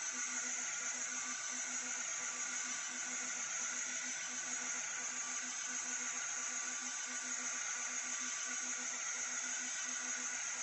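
Sculpfun S30 Pro diode laser engraver at work: a steady fan hiss, with a low motor hum that pulses on and off about three times a second as the laser head steps back and forth across the engraving.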